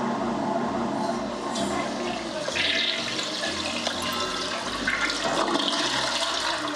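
A toilet flushing: a steady rush of water, surging louder twice as the bowl empties and refills.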